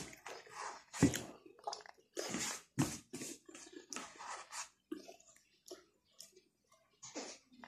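A man chewing and eating with his fingers close to the microphone: irregular wet mouth sounds, a few a second, with a sharper click about a second in.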